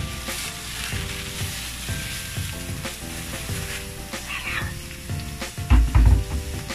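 Ground pork sizzling as it fries in hot oil with sautéed garlic and onion. A few loud, dull thumps come near the end.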